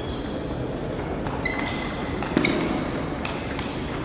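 Table tennis rally: the plastic ball clicking off the bats and bouncing on the table, several quick hits with short ringing pings. The loudest hit comes about two and a half seconds in.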